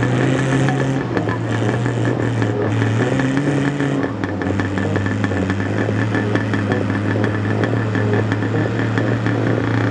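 Small tractor's engine running as it drives along, steady with a rapid clatter through it, its pitch stepping down a little about a second in and again about four seconds in.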